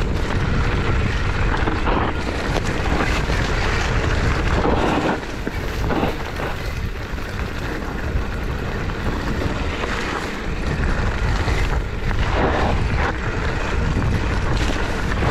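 Wind rushing over the microphone as a mountain bike rolls down a dirt singletrack, with the tyres running on the dirt and short rustling bursts every few seconds.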